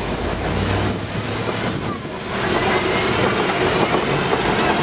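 Open-sided safari truck driving along a dirt track: engine running with rumbling road and wind noise, growing louder a little over two seconds in as it picks up speed.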